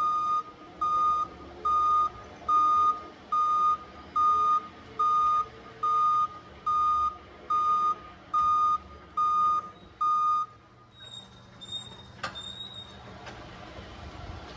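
Forklift's reversing alarm beeping steadily in a single high tone, about three beeps every two seconds, then stopping about ten seconds in. A single sharp click follows near the end.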